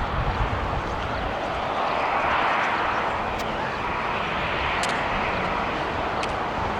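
Jet airliner engine noise, a steady broad rush that swells to a peak about two and a half seconds in and then eases off as the plane passes.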